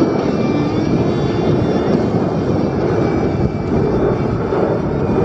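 Jet engine noise from a formation of F-16 Fighting Falcons flying overhead, loud and steady.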